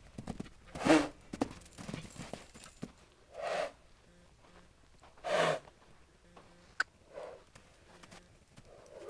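Young horse moving loose on sand: soft, scattered hoofbeats, with a few short louder noises about one, three and a half and five and a half seconds in.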